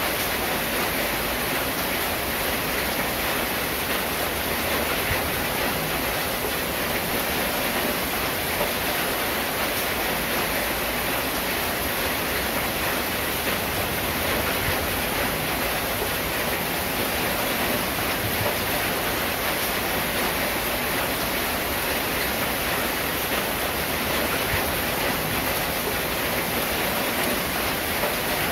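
Steady rain falling on a corrugated zinc (seng) roof, an even hiss that keeps the same level throughout.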